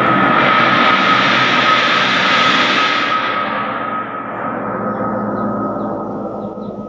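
Monel (stainless) Chinese gong ringing after a single mallet strike: a loud shimmering wash with one steady tone held through it. The high shimmer dies away from about three seconds in, and the ring fades slowly.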